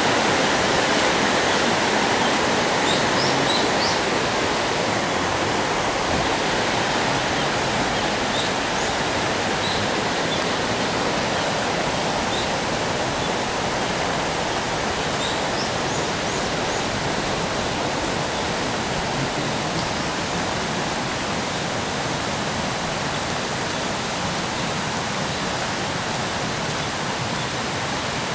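Steady rush of flowing water from a nearby stream, slowly growing fainter, with a few faint short high chirps in the first half.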